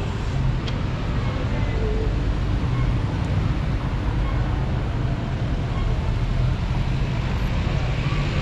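City street traffic: motor vehicle engines running, with a steady low rumble.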